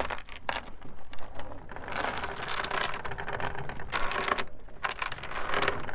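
Metal anchor chain rattling and clinking as it is handled by hand over a boat's bow, with denser spells of rattling about two and four seconds in.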